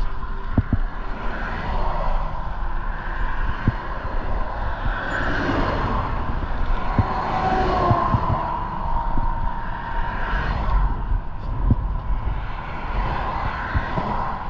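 Road traffic: cars passing, their noise swelling and fading, over a steady low rumble with scattered light knocks.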